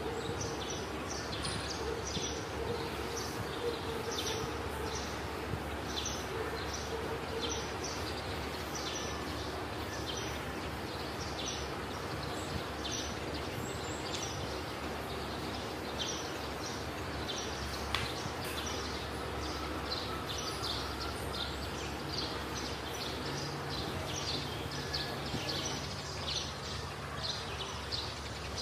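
Birds chirping in the background, many short high chirps over and over, over a steady low background noise.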